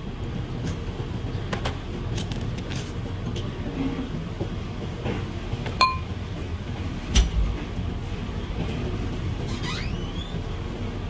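Handling noises from peeling a banana and slicing it with a kitchen knife: scattered light clicks and taps, one short metallic clink about six seconds in and a dull thump about a second later, over a steady background hiss.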